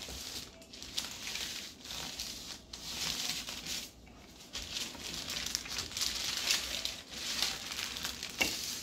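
Wooden rolling pin worked back and forth over dough pressed between sheets of baking paper, the paper crinkling and rustling with each stroke, in swells every second or two.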